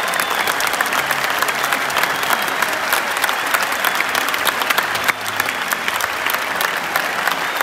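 Large crowd of football supporters clapping: a dense, continuous mass of hand claps, used to drown out booing from rival fans.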